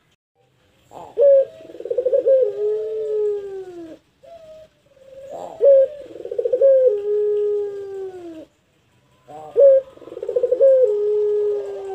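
Ringneck dove (puter) singing its long drawn-out 'pelung' coo three times. Each coo opens with a sharp note, breaks into a rolling trill, and ends in a long held note that falls in pitch as it fades.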